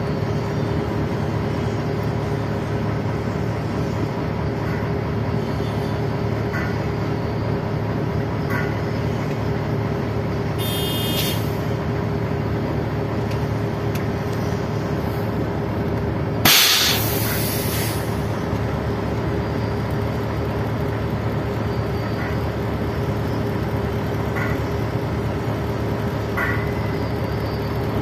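Large engine running with a steady low drone. About halfway through comes a short, loud blast of hissing air.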